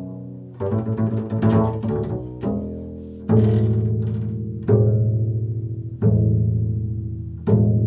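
Upright double bass played pizzicato: a quick run of plucked notes about a second in, then single low notes plucked about every second and a half, each left to ring out and fade.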